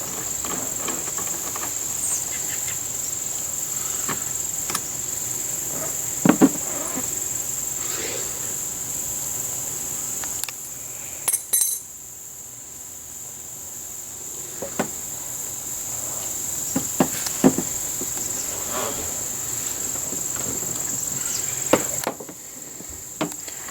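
Crickets trilling steadily in one high, unbroken note. The trill drops out for a moment just before halfway and again near the end. Scattered light knocks and clicks sound over it, from hands working on the wiring.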